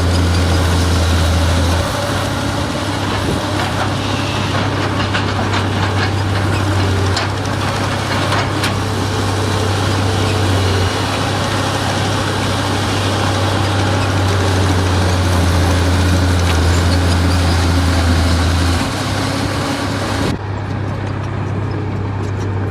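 Heavy diesel engine of an earthmoving machine running steadily, its low drone shifting in strength every few seconds, with a few sharp knocks partway through.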